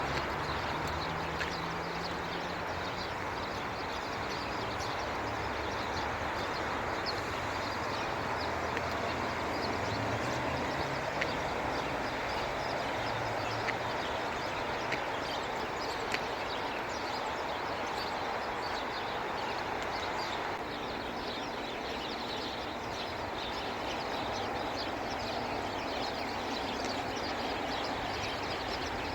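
A flock of sparrows chirping continuously in a tree over steady road traffic noise, with a vehicle's low engine rumble in roughly the first ten seconds.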